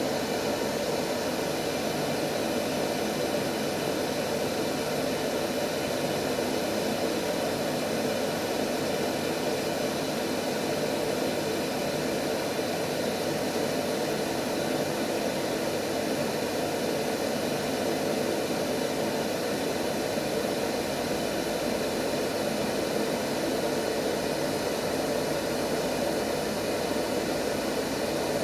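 Steady white noise: an even, unchanging rushing hiss, fullest in the lower middle range.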